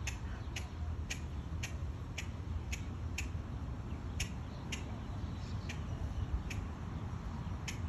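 A small bird giving short, sharp chip calls over and over, about two a second.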